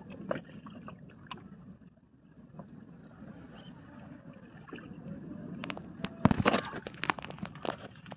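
Steady low water noise around a small boat, with scattered light clicks as a fishing net is handled by hand, and a burst of sharper knocks and taps about six seconds in.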